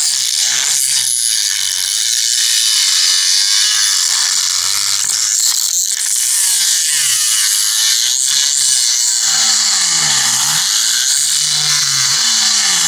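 Dremel rotary tool grinding into the steel of a driveshaft U-joint yoke, cutting down the factory stakes that hold the universal joint's bearing caps in. It is a continuous high grinding whine whose pitch wavers up and down as the bit loads against the metal.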